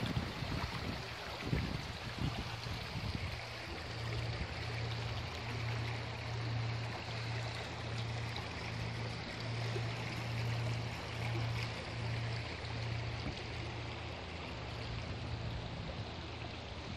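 A small woodland stream running over stones: a steady, even rushing of water. A low rumble comes in the first few seconds.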